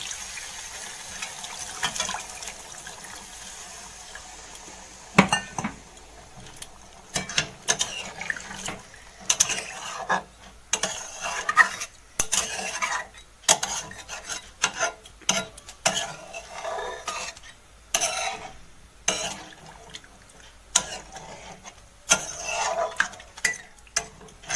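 Water poured from a steel mug into a metal kadai of spice-coated fish, a steady hiss that fades over the first five seconds. Then a metal spatula stirs the curry, scraping and clinking against the pan in irregular strokes.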